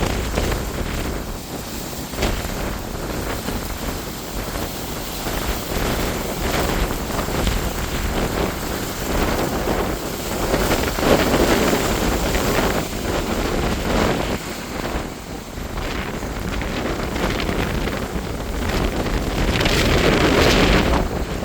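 Wind buffeting a phone's microphone: a continuous rumbling rush that rises and falls in gusts, strongest about halfway through and again near the end.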